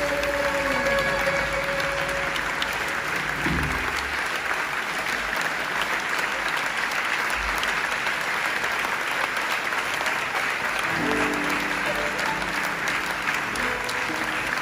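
Audience applauding steadily after a song, as the band's last held chord dies away at the start; a few instrument notes sound again about two-thirds of the way through and near the end.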